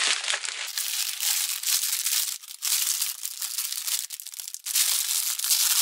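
Clear plastic poly bag crinkling and rustling as it is handled and pulled open, with two brief lulls partway through.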